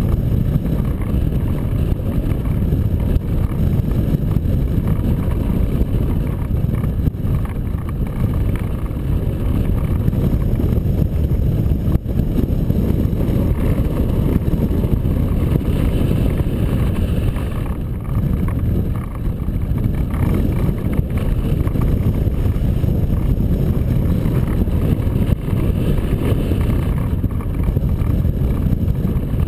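Airflow buffeting the microphone of a camera mounted on a hang glider in flight: a loud, steady low rumble of wind noise.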